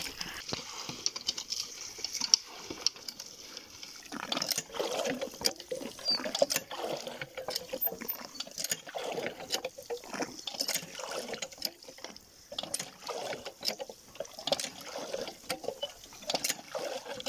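Cows drinking from a concrete water trough: irregular slurping and sloshing of water.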